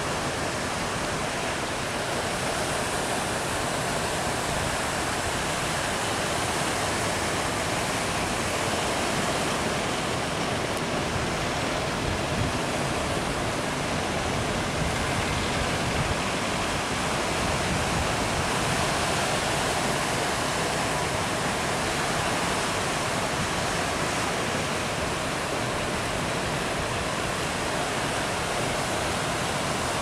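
Ocean surf breaking along the shore: a steady, unbroken rush of waves.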